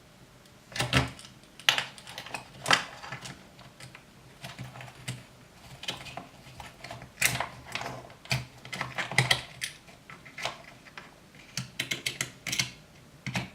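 Screwdriver driving screws into the Traxxas Slash 4x4 RC truck to mount the ESC: irregular clicks, taps and small rattles of the tool and screws, starting about a second in.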